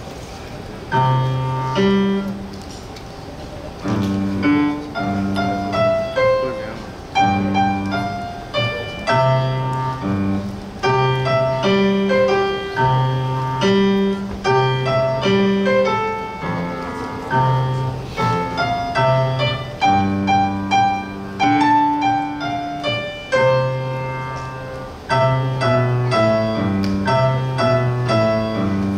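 Piano played live, a Christmas-style piece: bass notes about once a second under chords, with a melody line above, in a steady rhythm.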